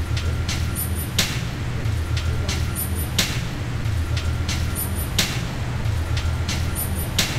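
Background music with a deep sustained bass and a regular beat that hits about every two seconds.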